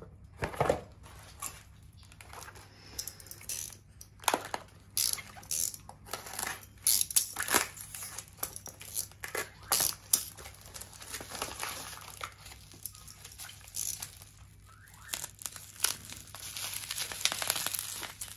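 Plastic wrapping and bubble wrap crinkling and tearing as a package is unwrapped by hand, in short irregular rustles with occasional knocks.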